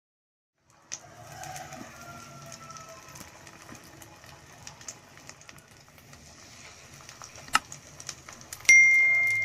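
Onion and egg batter sizzling and crackling in hot oil in a pan, starting about a second in, with small clicks as it is spooned in. Near the end a loud, bright ding, a subscribe-button bell sound effect, rings out and slowly fades.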